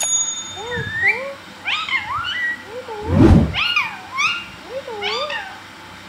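Rose-ringed (Indian ringneck) parakeet making a string of short squeaky calls that swoop up and down in pitch, several in a row with brief gaps. About three seconds in, a muffled low bump is the loudest sound.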